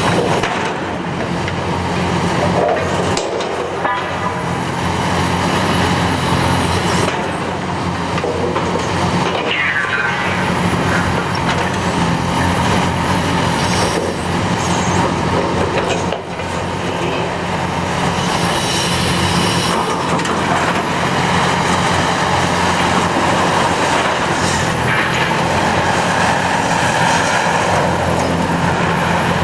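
Caterpillar 336E LN tracked excavator with a demolition shear working a concrete rubble pile: its diesel engine runs steadily under load, with scattered clanks and crunches of broken concrete and steel, a few sharper knocks among them.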